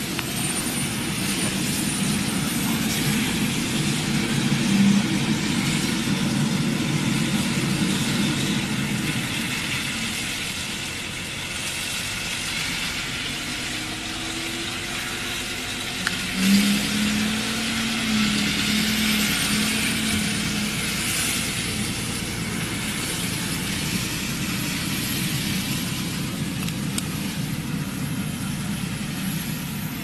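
Large Claas Xerion tractor's diesel engine running steadily under load as it pulls a slurry tank and soil injector through the field, with a brief louder swell about halfway through.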